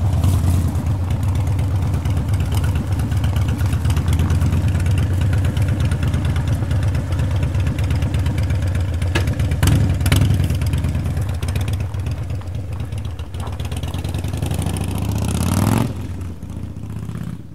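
Motorcycle engine running steadily, then dropping off sharply about a second and a half before the end.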